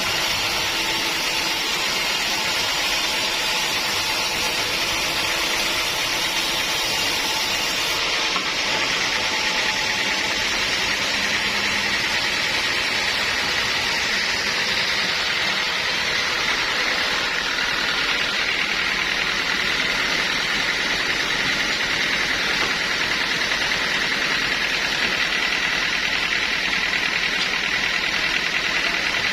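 Sawmill machinery running steadily, a constant mechanical noise with a faint steady whine coming in about halfway through.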